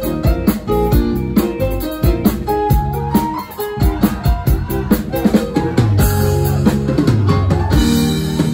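Live band playing an instrumental: a drum kit keeping a steady beat under a plucked-string melody and bass, with deeper sustained bass notes coming in near the end.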